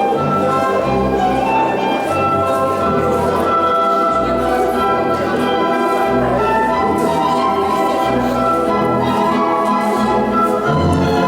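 Orchestral music for a polonaise, in a stately dance rhythm with a regular bass beat under held melody notes.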